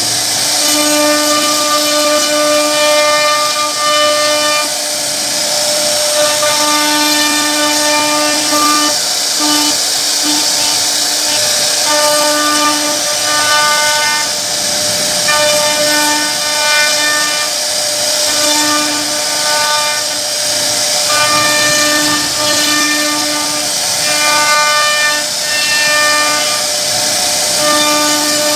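A CNC router spindle whining at a steady high pitch as its bit carves grooves into a wooden panel, over a constant hiss of cutting. The whine grows stronger and weaker in stretches of a few seconds as the cutter moves through the pattern.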